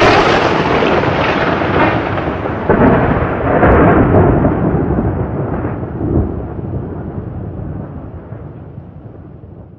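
A thunder-like rumble that hits abruptly at full strength, swells a few times, then dies away slowly over several seconds, edited in as an intro sound effect.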